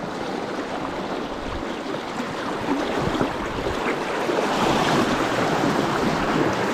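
River water rushing steadily around the wading angler, getting louder in the second half.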